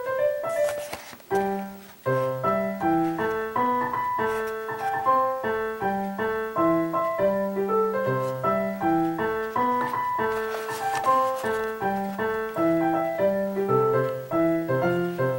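Background piano music: a light melody of short notes over a steady bass line, with a brief dip about two seconds in before it carries on.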